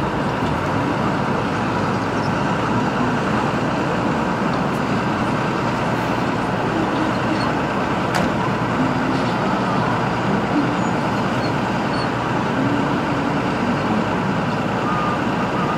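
Excavator engine running steadily, a dense, even noise with no change in level.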